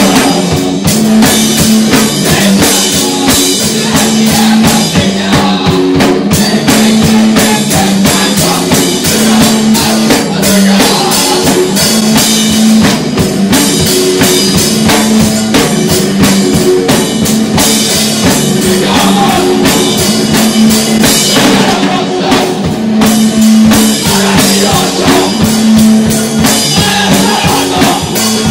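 Loud rock music played by a band: dense drum kit hits over a bass line, with guitar and a singing voice.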